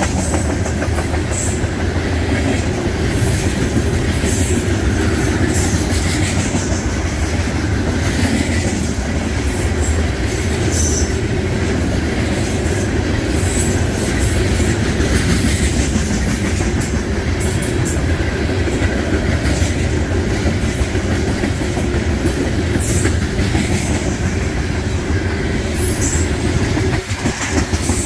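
Freight cars of a unit train rolling past, a steady rumble with wheels clattering over the rails and scattered brief high-pitched squeaks.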